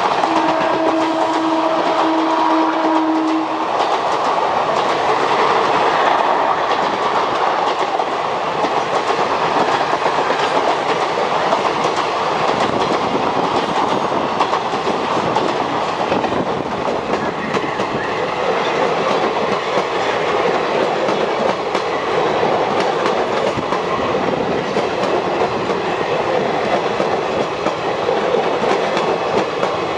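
Train horn holding one steady note that ends about three seconds in, then a passenger train running through close by: an even, loud rumble with the clatter of wheels over rail joints.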